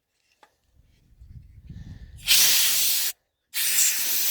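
Short blasts of compressed air hissing onto a water heater's igniter control board to clean its connections: two bursts, the second longer. A low rumble builds before the first.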